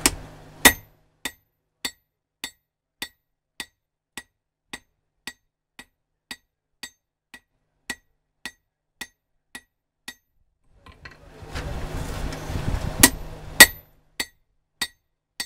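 Hammer on hot coil-spring steel over an anvil, forging the bevel of an axe edge: an even run of light, ringing strikes just under two a second, with a harder blow about a second in and two more near the end. A low rumble sits under the blows for a few seconds near the end.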